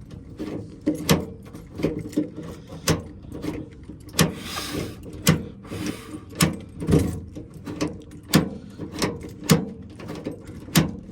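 Toyota Tundra tailgate lock mechanism clicking again and again as the key is worked back and forth to lock and unlock it, with a brief rustle about four seconds in. The lock sticks, which the owner puts down to light corrosion on the mechanism.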